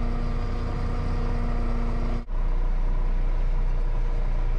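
Concrete mixer truck's diesel engine running steadily, heard from inside the cab. The sound drops out for an instant about two seconds in, then the same low hum carries on.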